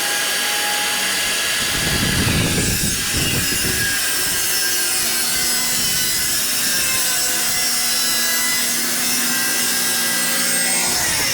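Electric power saw cutting through wood, running steadily through a long cut, heavier for a moment about two seconds in.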